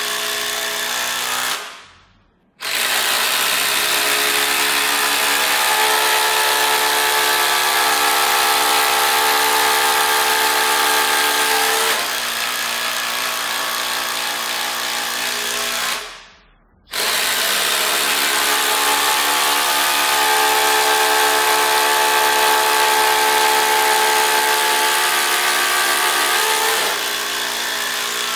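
Cordless impact drivers, a Flex FX1371 and a DeWalt DCF887, hammering 6-inch GRK RSS structural screws into stacked OSB subfloor under load. The hammering stops briefly about two seconds in and again around sixteen seconds, then starts again on the next screw. It thins a little at about twelve seconds and again near the end.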